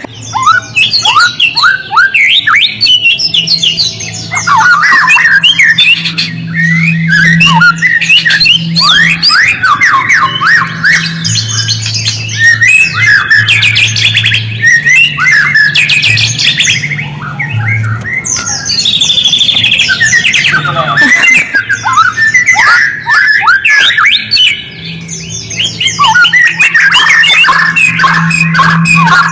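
White-rumped shama (murai batu) singing a fast, dense stream of chirps, trills and quick sweeping notes, with a brief lull about three-quarters of the way through. A low steady hum runs underneath.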